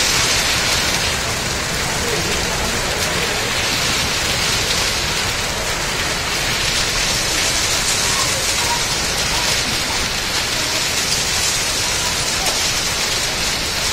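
Torrential rain mixed with hail pouring onto paving and a carpet: a steady, dense hiss peppered with small ticks of hailstones striking.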